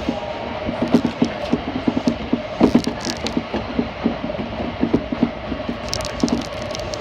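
Running noise of a Kintetsu electric train heard inside the passenger car: a steady rumble with a faint constant hum, broken by many small irregular clicks and rattles from the moving car.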